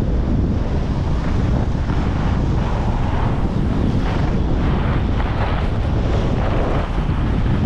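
Wind buffeting the GoPro HERO11's microphone during a fast ski descent, a steady low rumble, with irregular swells of hiss from the skis carving and scraping on the piste snow.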